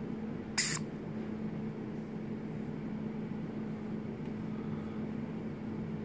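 A young varied lorikeet gives one short squeak about half a second in, over a steady low hum.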